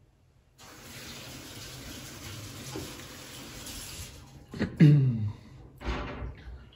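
Kitchen tap running steadily for about four seconds, then shut off. Straight after, a loud, brief low vocal sound falls in pitch, and a second, shorter one follows about a second later.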